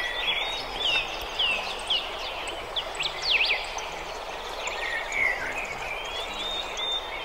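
Birds chirping: many short calls that swoop up and down in quick succession, over a steady outdoor background hiss.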